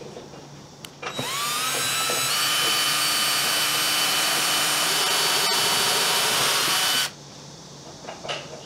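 Handheld electric power tool spinning up with a rising whine about a second in, running steadily at speed for about six seconds, then cutting off suddenly. Light knocks of wood being handled before and after it.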